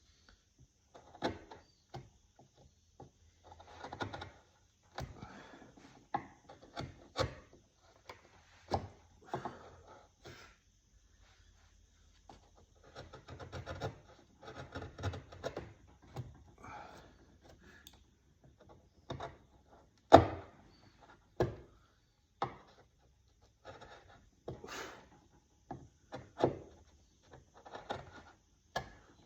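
Wood being worked by hand: irregular taps, knocks and short scraping strokes, with one sharp, louder knock about twenty seconds in.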